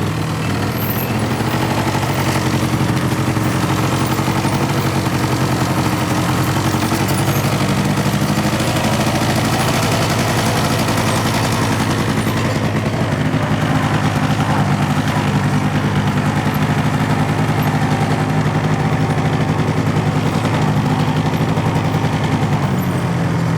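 Truck engine running steadily as the truck drives along a trail, a low drone with a fast pulsing rattle and small shifts in pitch.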